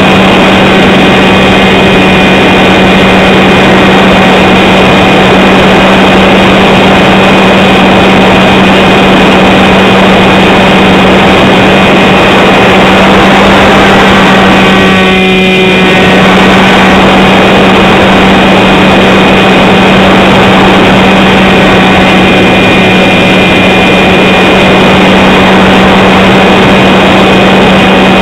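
RC model aircraft's motor and propeller heard from a camera mounted on the wing: a loud, steady drone with a strong low hum and higher whining tones over rushing air, briefly shifting about halfway through.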